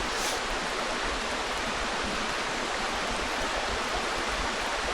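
Creek water rushing, a steady even sound that holds level throughout.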